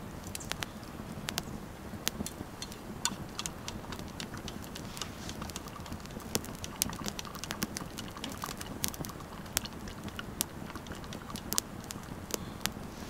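Campfire crackling: irregular sharp pops and snaps, several a second, over a steady low rumble.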